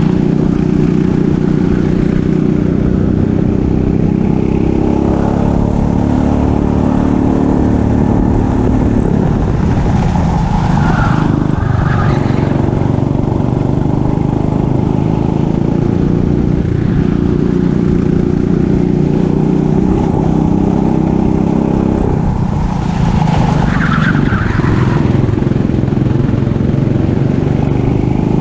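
Racing kart engine heard from onboard, running hard at high revs. The revs drop twice, about ten seconds in and again about twenty-two seconds in, then climb back.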